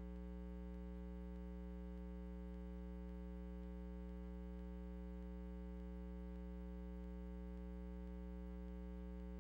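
Steady electrical mains hum with a stack of overtones and nothing else: the game sound has dropped out, leaving only the hum.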